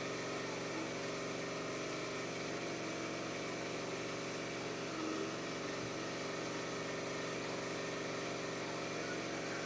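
A steady machine hum with several held tones that stays even and unchanging.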